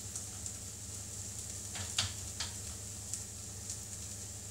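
Chicken pieces frying in a pan, a steady sizzle. About two seconds in come a few short scrapes as a spoon spreads polenta on a paper-lined baking tray.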